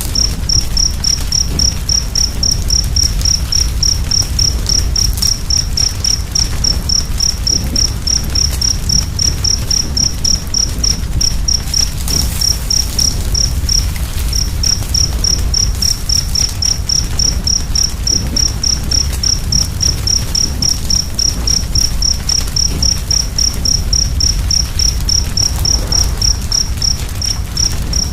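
Wood fire crackling with a low rumble, while a cricket chirps steadily at about three chirps a second, pausing briefly about halfway through.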